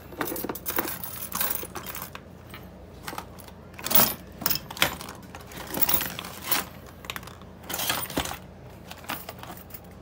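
Small metal lock-picking tools and padlocks clinking and rattling together on a wooden bench as they are handled, in irregular light clinks, the sharpest about four and five seconds in.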